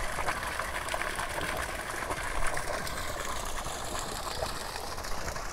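Steady rush of spring water running and pouring.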